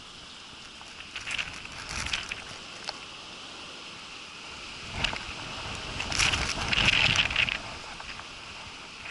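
Steady wind and rain noise on the microphone, with louder gusty rushes about a second in and again from about five to seven and a half seconds in.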